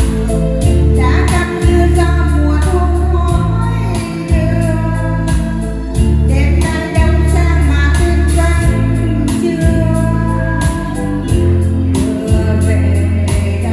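A woman singing a Vietnamese song over a backing track with a steady drum beat and heavy bass notes.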